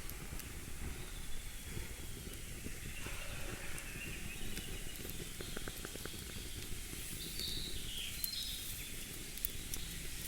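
Outdoor nature ambience: a steady hiss with a few short bird chirps, mostly late on, and some faint clicks.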